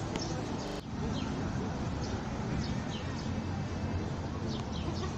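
Outdoor city-park ambience: small birds give many short, high, falling chirps over a steady low hum of traffic and distant voices.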